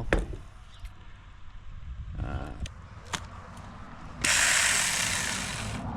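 Sharp plastic clicks and knocks from a cordless mini chainsaw being handled, then a loud, steady rushing noise that starts suddenly about four seconds in and lasts almost two seconds.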